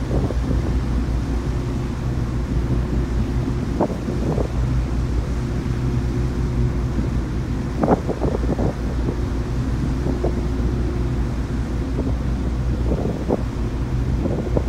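Ferry's engines and propellers running with a steady low drone and hum, under wind buffeting the microphone in gusts, the strongest about halfway through.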